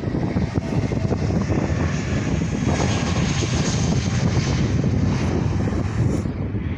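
An airliner taking off, its engines at takeoff thrust: a steady, loud rumble with a hiss that swells in the middle and fades shortly before the end.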